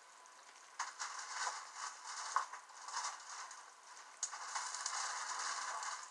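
Chicken pieces sizzling and crackling in oil as they brown in a frying pan, louder from about a second in, with a few sharp clicks of a utensil or pan.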